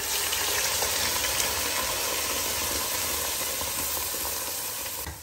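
Wet ground coconut-and-onion masala paste hitting hot oil in a pot: a loud sizzle that bursts in all at once, holds steady and dies down near the end as the oil cools under the paste.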